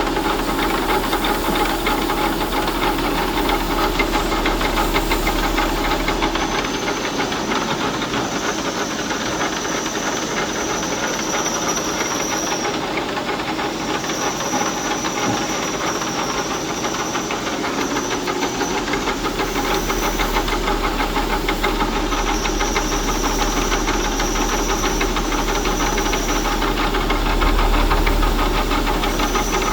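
Machine tool running steadily with a hiss and a fine, rapid chatter, as in metal being machined; a thin high whine cuts in and out several times.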